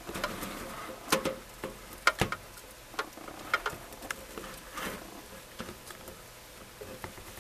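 Hermit crabs' legs and shells clicking and scraping against a clear plastic enclosure and food dish: irregular sharp taps, with the loudest knocks about one and two seconds in.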